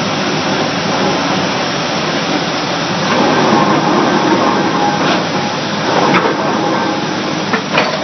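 Vulcan #2 single-acting air/steam pile hammer running steadily, its ram pounding a treated timber pile down into soft soil with a hiss of exhaust, a few sharper clanks standing out near the end.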